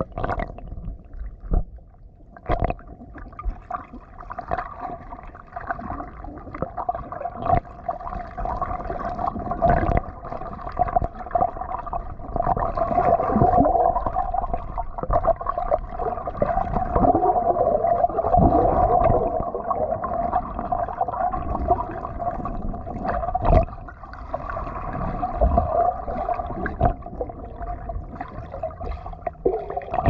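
Underwater sound through a submerged action camera: the muffled gurgling and splashing of ducks paddling and dabbling for food at the surface just overhead, with many sharp knocks and clicks. The commotion grows busier in the middle and eases briefly near the end.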